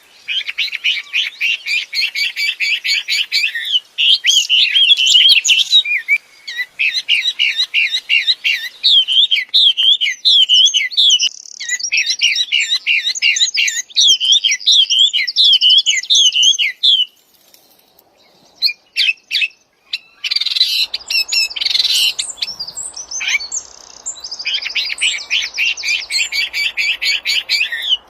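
A wambi songbird singing in full voice: long, fast runs of rapid, repeated high chirps and trills. The song breaks off for a few seconds about two-thirds of the way through, then starts again over a faint steady hiss.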